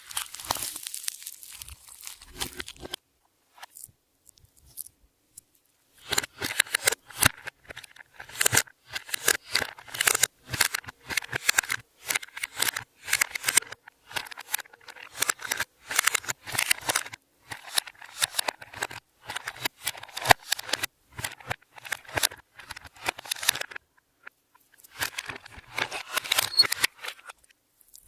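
Clear slime being kneaded and stretched by hand, giving dense runs of sharp sticky clicks and pops, with a short pause a few seconds in and another shortly before the end.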